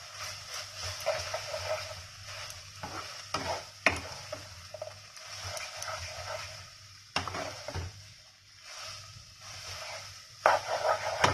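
Wooden spatula stirring and tossing noodles in a hot non-stick pan, the food sizzling as it fries. Irregular scraping against the pan with a few sharp knocks, a quick cluster of them near the end.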